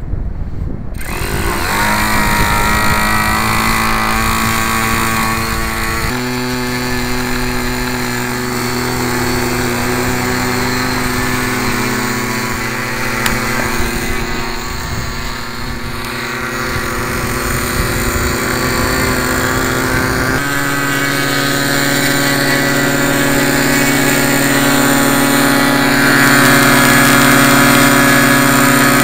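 Two ASP .52 model glow engines on a twin-engine RC plane running steadily with a high, buzzing drone, being run in. The pitch steps to a new level about six seconds in and again about twenty seconds in. The left engine keeps changing tune.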